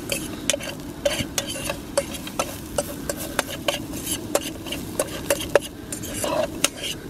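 A metal fork stirring chopped garlic and rosemary in a metal camping frying pan, scraping and clicking against the pan about three times a second over a steady low background noise.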